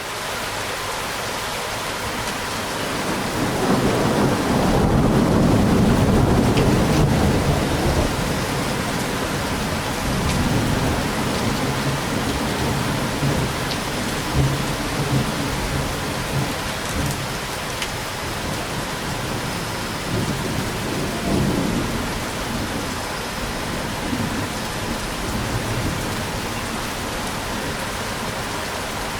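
Steady heavy rain with thunder rumbling: a long rolling rumble swells a few seconds in and fades, followed by quieter rumbles later on.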